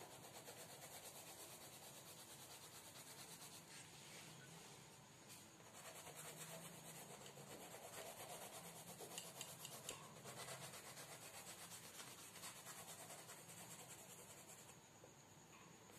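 Faint scratching of a blue colour pencil shading back and forth on sketchbook paper.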